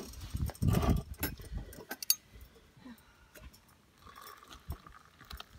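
Hot water poured from a camp-stove pot into a cup, a faint trickle in the last second or so, with light clinks and taps throughout and a low rumble about a second in.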